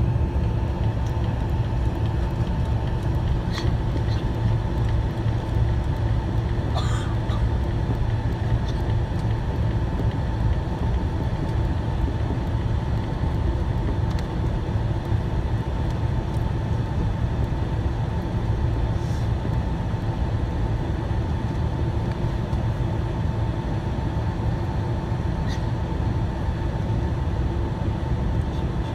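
Cabin noise inside a Boeing 767-300ER airliner taxiing: steady low rumble from the engines at taxi power and the rolling airframe, with a steady hum and a few faint clicks.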